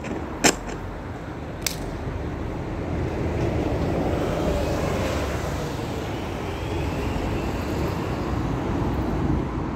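Three sharp knocks from a hand-held microphone being handled in the first two seconds, then steady street traffic noise that swells slightly around the middle, as of a vehicle passing.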